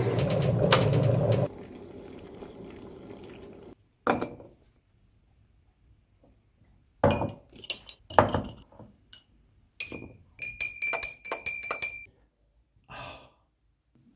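A steady appliance hum that drops away about a second and a half in, then, after a pause, a metal spoon clinking against a ceramic cup in several quick runs of ringing strikes as tea is stirred.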